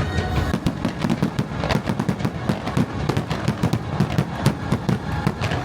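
A rapid barrage of fireworks: sharp bangs and crackles several times a second over a low rumble.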